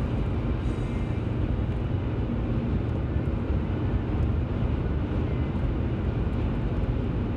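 Steady rumble of a car driving at highway speed, heard from inside the cabin: tyre and road noise with the engine's low hum, unchanging throughout.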